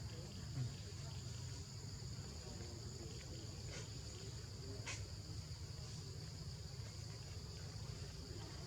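Steady high-pitched insect drone in two unbroken bands, over a low rumble, with two faint clicks about four and five seconds in.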